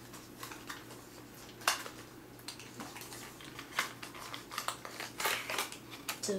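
Toy packaging being handled and opened by hand: irregular sharp clicks and crinkles of plastic and card, with a few louder snaps.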